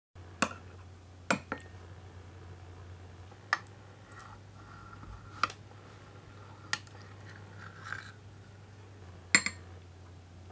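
Metal spoon clinking against a white enamel container and a ceramic bowl while pudding is scooped and served. The clinks are sharp, scattered and come about nine times, the loudest near the end, over a low steady hum.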